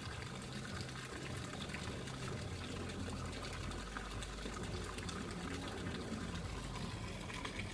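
Steady rush of running water, with a low hum underneath.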